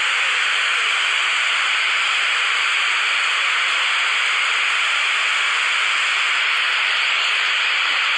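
A steady, even hiss with no change in level.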